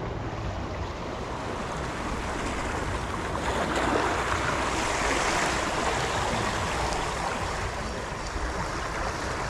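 Small sea waves washing and swirling over rocks, a steady rush of water that swells to its loudest about four to six seconds in, with a low wind rumble on the microphone.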